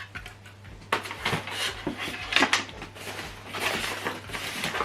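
Handling noise: irregular knocks, clicks and rustling as a soundbar rear speaker with a plastic back and its packaging are handled, starting about a second in.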